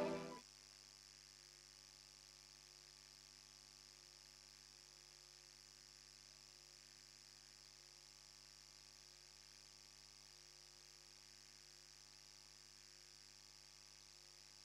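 Near silence: a faint steady hum and hiss after the last of the music fades out in the first half second.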